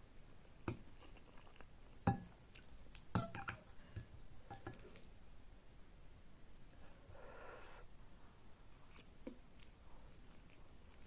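Close-miked ASMR eating of Korean noodles: a few sparse, sharp utensil clicks and clinks against the dish, with a brief soft mouth sound about seven seconds in.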